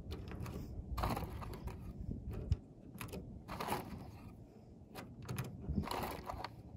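Small clicks and rattles of .22 LR cartridges being handled and pressed into a Glock 44 magazine, with one sharper click about two and a half seconds in.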